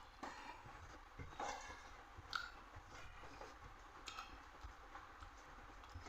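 A person chewing a meal of rice and dal, with irregular soft mouth clicks and wet smacks and a sharper click a little over two seconds in.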